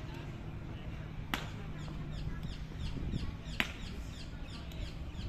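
Hobnailed tsarouchi clogs of an Evzone guard striking stone paving in the slow ceremonial march: two sharp clacks a bit over two seconds apart. Birds chirp in quick downward-sliding notes between the steps.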